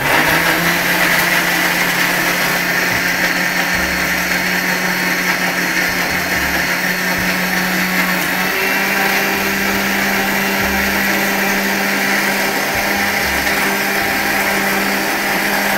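Electric Indian mixer grinder (mixie) running steadily with a small stainless-steel jar, blending a wet, frothy mix. The motor hum steps up a little in pitch about halfway through.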